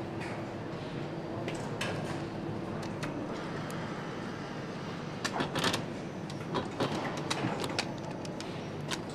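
Motorcycle assembly-line noise: a steady machinery hum with a low tone that stops about three seconds in, then scattered sharp clicks and knocks in clusters through the second half.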